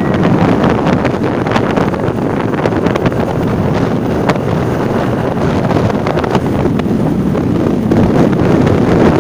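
Wind buffeting the microphone on a moving motorcycle, a steady rush laid over the motorcycle's engine and road noise.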